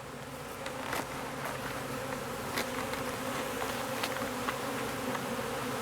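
Honeybee swarm buzzing steadily, the dense hum of many bees flying around the hive, with a few faint ticks.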